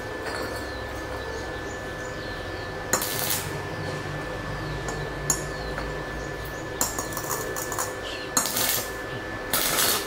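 Homemade arc welder striking on steel square tubing: an electrode scratched and tapped against the steel, catching in short crackling spurts of arc about 3, 7 and 8.5 seconds in and again near the end. A steady faint hum lies under it.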